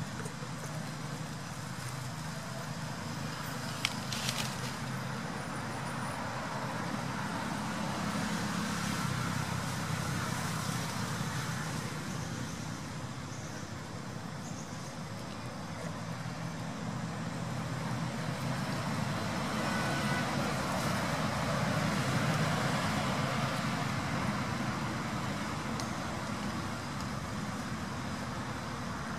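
Steady rumble of road traffic, swelling a little past the middle and easing toward the end, with a couple of faint clicks early on.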